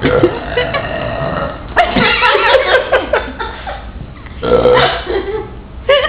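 Loud, deliberate 'trucker burps': a series of long, forced belches pushed out on purpose in a burping contest, the longest about two seconds in.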